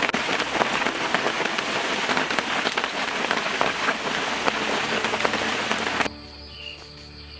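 Heavy rain falling on forest foliage: a dense, steady hiss dotted with countless individual drop hits. It cuts off abruptly about six seconds in, leaving a much quieter steady background with a few faint level tones.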